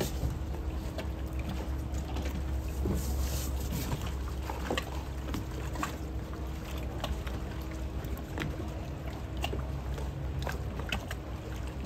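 Scattered small clicks and taps of an outboard motor's plastic engine control unit and its wiring connectors being handled and unclipped, over a steady low hum with a faint steady tone.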